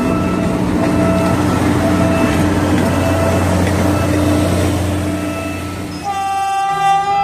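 A PNR diesel-hauled train of ex-JR 203-series coaches rumbling past over a level crossing. About six seconds in, an approaching diesel locomotive sounds one horn blast of about a second.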